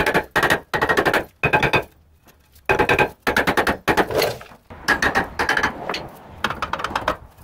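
Hammer blows on a rusted-on rear brake rotor of a 2014 Nissan Murano, struck in quick bursts of a few hits each with a metallic ring, to break the rotor free of the hub.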